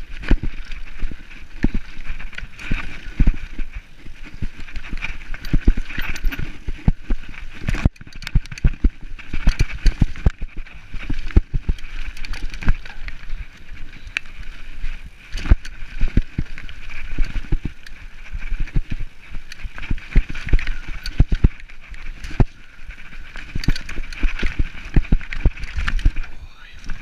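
Mountain bike descending a rough dirt trail at speed: a continuous irregular clatter of knocks and rattles as the bike bounces over bumps and roots, over the steady rush of the tyres on the dirt.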